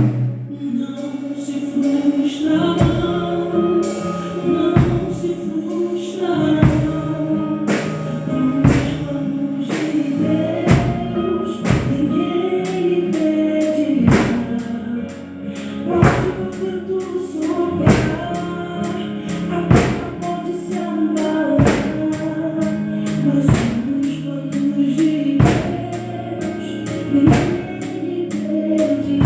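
Drum kit played along with a gospel song with sung vocals. A heavy drum hit falls about once a second under faster cymbal strokes.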